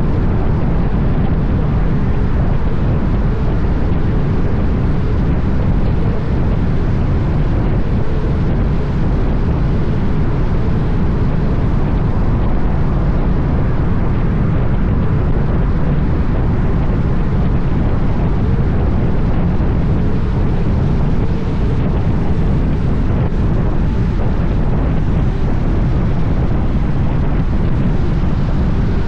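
Kenworth W900 semi truck at highway speed: a steady low engine drone with road and wind noise.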